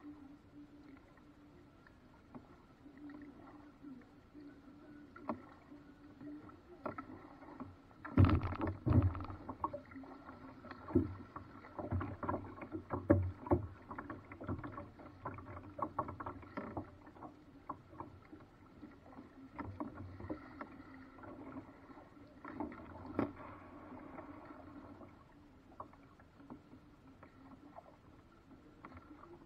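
Irregular knocks and clunks of paddles against a paddled boat's hull. They begin about eight seconds in, are loudest at first, and thin out after about twenty-four seconds.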